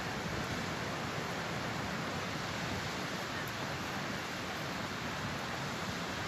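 Ocean surf breaking on a sand beach, heard as a steady, unbroken rushing noise; the waves are running somewhat high.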